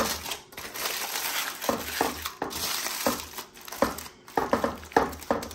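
Aluminium foil crinkling and crumpling as it is folded and pressed by hand into a parcel, in irregular bursts of crackles.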